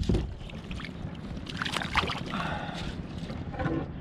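Knocks, clicks and rustling as a landing net and fresh catch are handled aboard a plastic fishing kayak, with a loud knock right at the start. Wind rumbles on the microphone.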